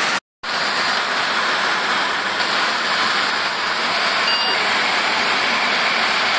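Steady hiss of outdoor road-traffic ambience, with a motorcycle and car passing, even in level throughout; the sound cuts out completely for a moment just after the start.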